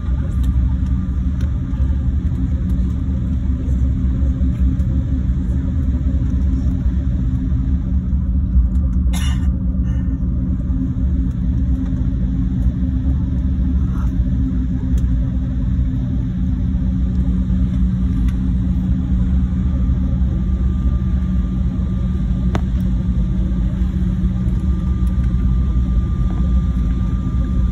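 Airliner cabin noise as the jet taxis after landing: a steady low rumble, with a brief click about nine seconds in.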